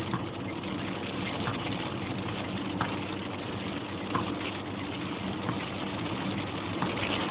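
Car engine running steadily, heard from inside the cabin, with a few scattered light taps of rain hitting the car.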